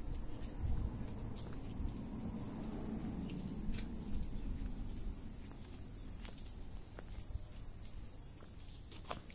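A steady, high insect chorus chirring throughout, with faint footsteps and a low rumble beneath it.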